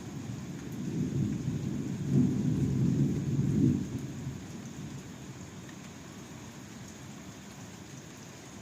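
Rolling thunder over steady rain: a deep rumble swells about a second in, is loudest for a couple of seconds, then dies away about halfway through, leaving the even hiss of the rain.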